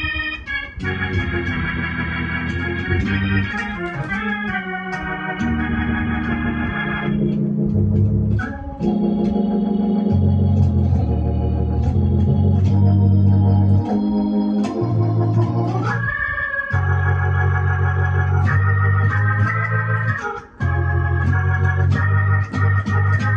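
Electronic keyboard played on an organ voice: gospel-style chords held over a sustained bass line, the notes holding steady without fading and the chords changing every second or two, with two short breaks.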